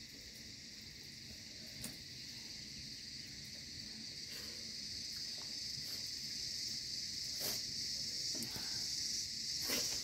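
Steady high-pitched chirring of insects, slowly growing louder, with a few faint clicks over it.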